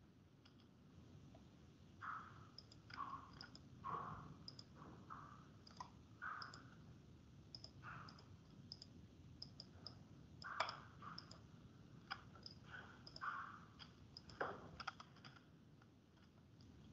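Faint, irregular clicking of a computer mouse and keyboard, single clicks and short runs of clicks scattered throughout.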